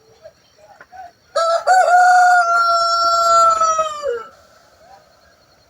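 A rooster crowing once, one long call of about three seconds that falls off at the end, with a few soft chicken clucks before it.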